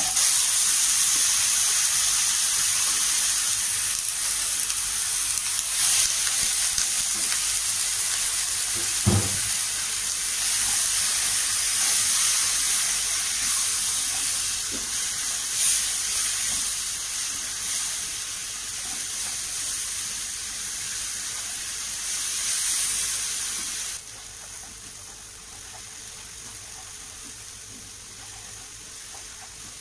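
Ground spice paste (shallots, garlic, red chillies, turmeric) hits hot oil in a wok and sizzles loudly as it is stir-fried with a spatula, with a single knock of the spatula about nine seconds in. After about twenty-four seconds the sizzle turns suddenly quieter and carries on softly.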